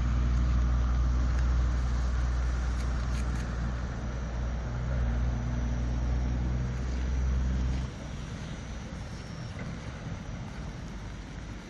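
Car engine running with a steady low hum, which drops away sharply about eight seconds in.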